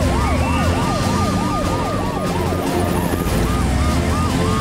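Several emergency-vehicle sirens from an animated police car, fire truck and ambulance wailing together, fast rising-and-falling sweeps about three a second, over a low vehicle rumble: the rescue team heading out on a call.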